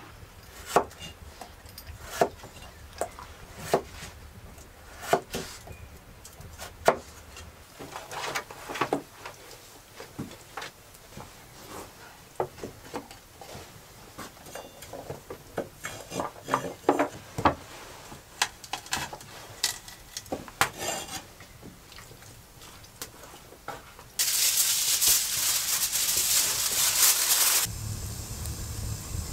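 Wooden bowls, utensils and vegetables being handled on a plank table: scattered sharp knocks and clatters, some in quick clusters. Near the end a loud steady hiss lasts about three seconds and cuts off suddenly, giving way to the low rumble of a wood fire burning in a stove.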